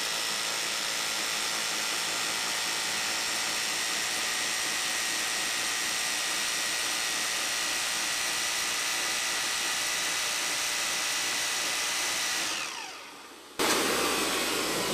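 Corded hammer drill running free at a steady speed with a steady whine on power from a 12-volt dynamotor generator, then winding down with falling pitch as the trigger is released near the end. Then a quieter steady hum.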